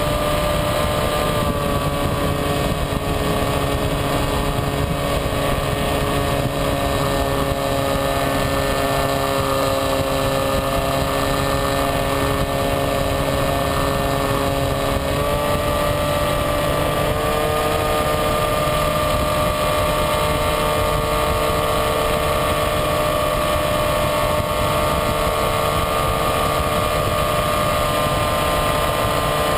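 Skywalker RC plane's electric motor and propeller running steadily in flight with a steady rush of air, heard from the plane's onboard camera. The motor's pitch shifts a little about halfway through.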